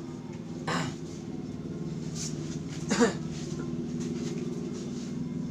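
A person coughing twice, a short cough about a second in and a louder one about three seconds in, over a steady low hum.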